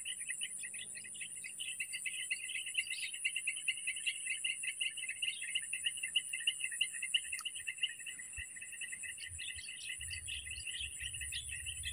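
Insects trilling steadily in a fast, high-pitched pulse, with short bird chirps scattered over it.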